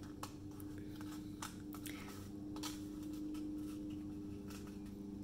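Faint rustles and a few light ticks of glitter cardstock being handled and held pressed together by hand, over a steady low hum.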